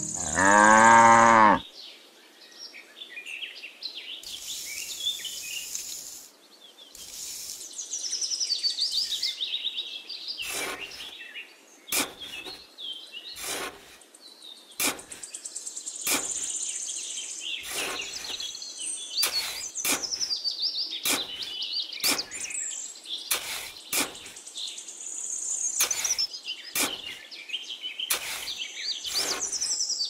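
A cow moos once at the start. Then birds chirp throughout while a small hand trowel scrapes and digs into damp sand in short strokes, about one a second.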